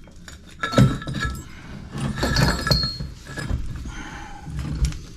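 Metal clinking and clanking from a chain cutter and a cut section of four-inch cast iron soil pipe, with a sharp knock about a second in and a short ringing clink a couple of seconds later.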